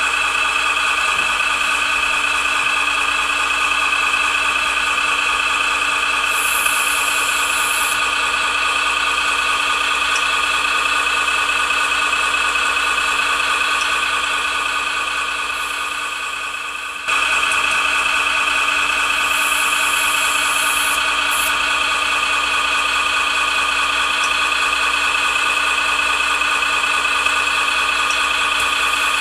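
Servonaut SMX sound module in the RC truck playing a simulated Duramax diesel engine idling steadily through the model's speaker. Twice there is a brief high hiss over it, and about two thirds of the way through the sound drops away a little and comes back abruptly.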